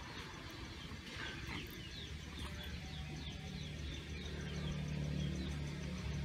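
A small bird chirping over and over in short, quick falling notes, with a low steady hum that gets louder about halfway through.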